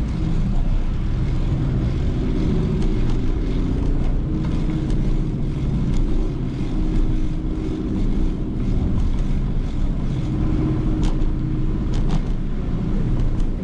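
Steady low rumble of a bicycle ride along city streets, with a few light clicks and rattles.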